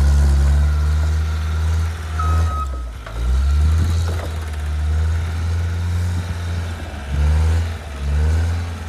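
Engine of the vehicle dragging the calving shed on a chain, running steadily under load, with its low drone dipping briefly a few times.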